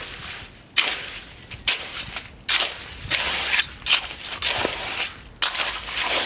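Crushed stone crunching and scraping in repeated strokes, roughly one a second, as gravel is added to and worked into a cement and sand mix by hand.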